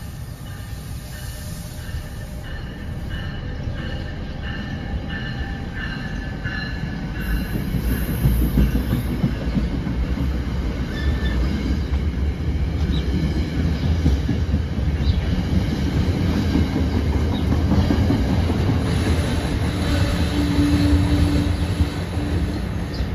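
NJ Transit Comet passenger coaches pulling out and rolling past close by, wheels rumbling and clacking over the rails. Thin high wheel squeal in the first few seconds, and the rumble grows louder from about seven seconds in as the train gathers speed.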